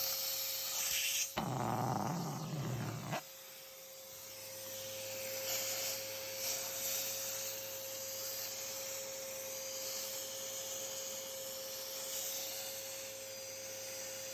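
Hoover WindTunnel XL Pet upright vacuum cleaner running with a steady motor whine and hum. A louder, rougher noise cuts in about a second in and stops after about two seconds.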